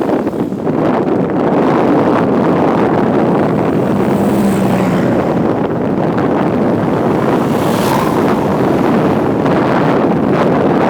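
Loud, steady wind buffeting on the microphone, a dense rushing noise with no clear engine note.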